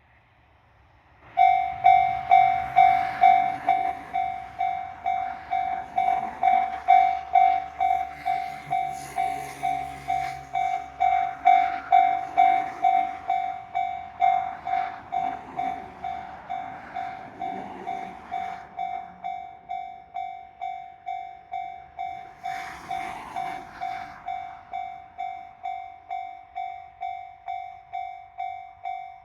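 Japanese railroad crossing warning bell starting about a second in and ringing a steady, evenly repeated 'kan-kan' ding, while a train rumbles past through the middle of the ringing.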